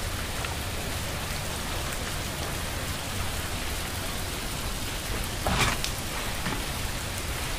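Steady hiss of freezing rain falling on ice-coated trees and ground during an ice storm, with a brief louder noise about five and a half seconds in.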